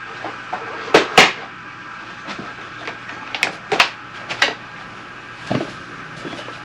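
Sharp metallic knocks and clanks of tools and exhaust parts being handled, six in irregular succession, over a steady background hum.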